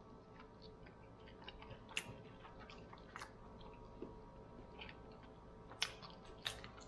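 Close-up chewing of a man eating a lamb meatball, with a scatter of short wet mouth clicks and smacks.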